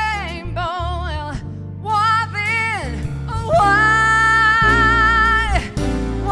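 A woman singing a drawn-out melismatic vocal passage with wide vibrato, ending in a long high held note, over keyboard and bass accompaniment.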